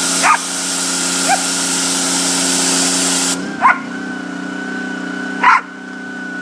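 Boykin Spaniel barking, about four short barks, over a running pressure washer. The spray hisses for the first half and cuts off suddenly, while the washer's motor keeps running with a steady hum.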